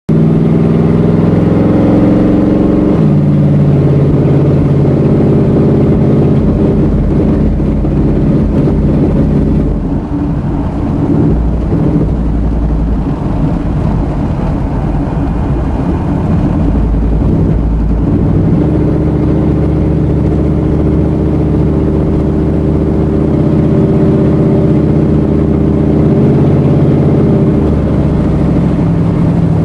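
Hemi engine running with a misfire, its speed changing a few times, with a steadier stretch near the end.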